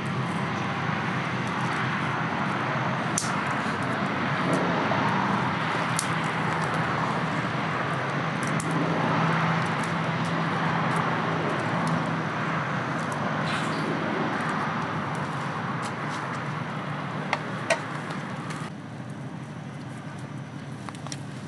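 Steady outdoor background noise, a hiss with a low hum under it, with a few faint taps scattered through; it drops quieter near the end.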